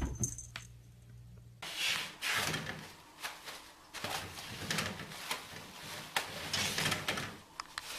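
A cat knocks against a closet door a couple of times, then about one and a half seconds in a long stretch of rustling in uneven bursts begins, with scattered light clicks, as a cat bats at a bathroom curtain.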